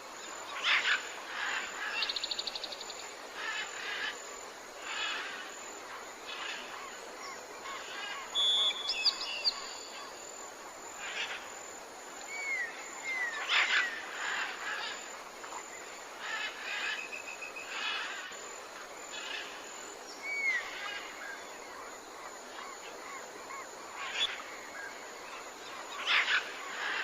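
Jungle ambience: many birds calling over a steady background hiss, with short chirps, a couple of fast stuttering trills, and rising-then-falling whistled notes scattered through it.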